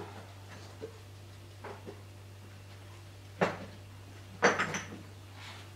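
Kitchen items being handled: a few light knocks, then a sharper knock a little past three seconds in and a short clatter about a second later, like a cupboard or a spice jar being handled, over a steady low electrical hum.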